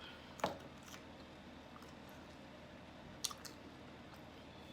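Faint eating sounds: quiet chewing with sharp mouth or utensil clicks, the loudest about half a second in and another a little after three seconds.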